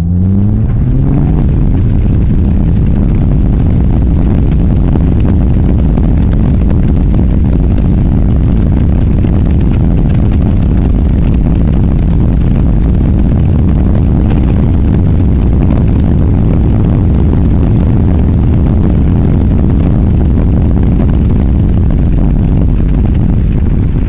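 Heavy wind buffeting on an outside-mounted camera microphone on a Nissan Skyline GT-R R33 at speed: a loud, steady low rumble that covers the engine. The engine's rising note is heard under it only in the first second or so.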